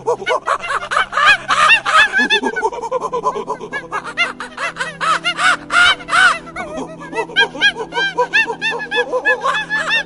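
Many short animal calls in quick, overlapping succession, each a brief pitch that rises and falls, over background music with steady held tones.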